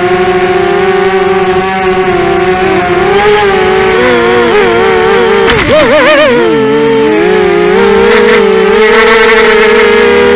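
Four Lumenier FX-2206 2000kv brushless motors of a QAV250 mini quadcopter spinning Gemfan 5x3 props, heard close up from the onboard camera. They make a steady, many-toned whine whose pitch wavers with throttle changes, most of all around the middle.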